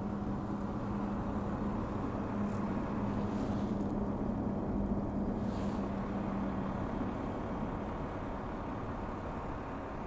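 Rear-loading garbage truck's engine running with a steady low rumble and a droning hum that fades out about seven seconds in.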